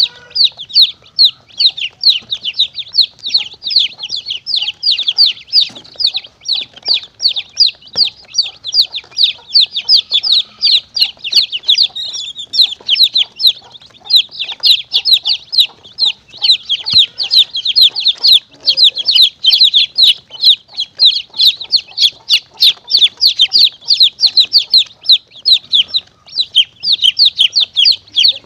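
Baby chicks peeping without pause: a dense run of short, high, downward-sliding peeps, several a second. It is a chick-distress recording played as a caller to lure monitor lizards and mongooses.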